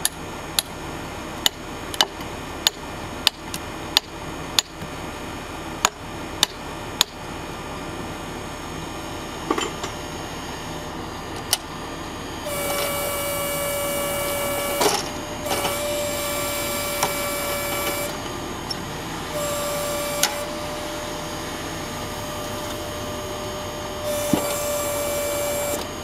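A run of sharp knocks comes about twice a second over the first few seconds. Then a DORN-TEC vertical hydraulic log splitter works in four stretches: a steady whine at one fixed pitch while the ram is driven, with a few sharp cracks, over a constant background of machine running.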